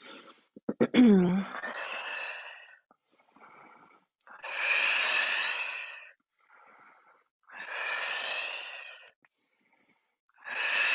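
A person breathing audibly while moving through a yoga twist. A falling voiced sigh comes about a second in, then four long, strong breaths about three seconds apart, with fainter breaths between them.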